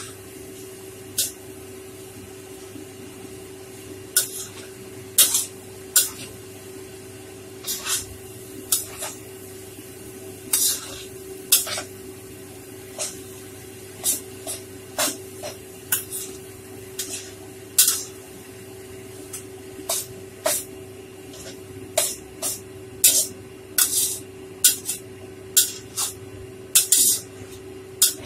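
Metal spatula scraping and clinking against a stainless steel wok as rice vermicelli with cabbage is stir-fried, in short uneven strokes about once a second. Under it runs a steady hiss and a low steady hum.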